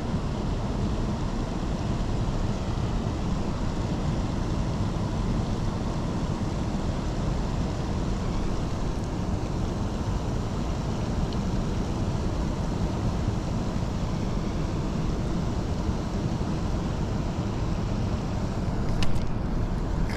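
Steady, even rushing of water pouring out below a dam, strongest in the low range. A single short knock near the end.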